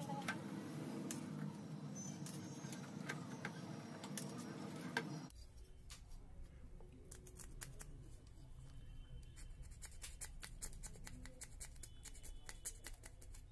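Flat metal blade scraping across the copper-track side of a circuit board in quick short strokes, a dense run of small scratchy clicks that starts about five seconds in. Before that there is only faint handling noise over a low hum.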